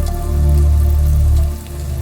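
Rain pattering under slow ambient music of sustained low synth tones, which dip and change chord near the end.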